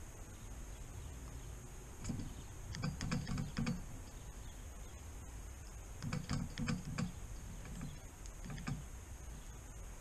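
Red-bellied woodpecker pecking at suet in a wire-cage feeder: bursts of quick knocks starting about two seconds in, again around six seconds, and a short one near nine seconds.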